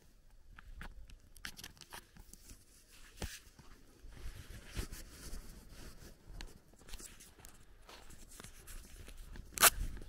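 Footsteps crunching and scuffing on a sandy dirt road, uneven in rhythm. A single sharp, loud click comes near the end.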